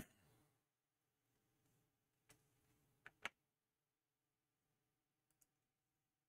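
Near silence broken by a few sharp computer mouse clicks as names are entered into an online randomizer: one at the start, two close together about three seconds in, and fainter ones near the end.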